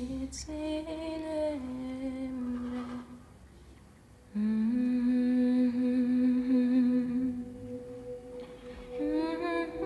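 A woman humming a lullaby in slow, long-held notes, with a short break about three seconds in before the humming resumes.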